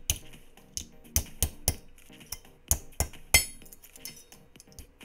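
Metal bottle cap being bent flat by hand against a metal block: irregular clicks and clinks as its crimped edges are worked out, with one brighter ringing clink about three and a half seconds in. Faint background music underneath.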